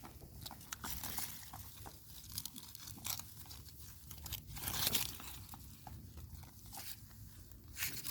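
Baby goat biting and chewing bean plants: irregular crisp crunches as it munches, with louder bursts about five seconds in and again near the end.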